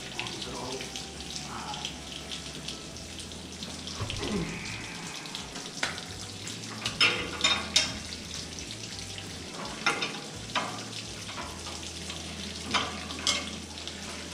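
Water running and splashing steadily out of a rusted blast valve onto a concrete floor. Through it come a series of sharp metallic clicks and knocks, loudest about seven to eight seconds in, as a wrench turns the nut on a homemade gear puller.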